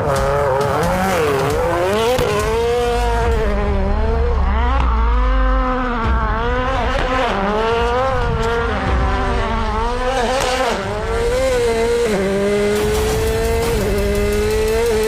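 Subaru WRX race car's turbocharged boxer four-cylinder engine driven hard, its revs rising and falling over and over through gear changes and corners. Near the end it holds a steadier, slowly climbing note.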